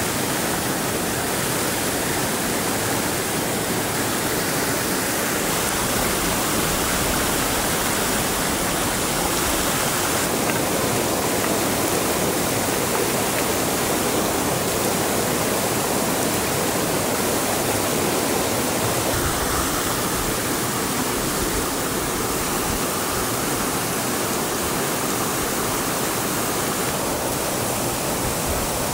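Steady rushing noise, even and unbroken, with no separate knocks or voices.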